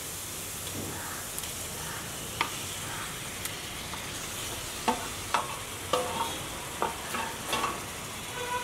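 Food sizzling in a hot pan while a metal spoon stirs it, scraping and knocking against the pan several times in the second half, some strikes leaving a short metallic ring.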